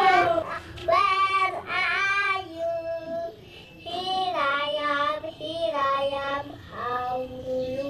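A child's high voice singing a tune in short phrases, with some notes held.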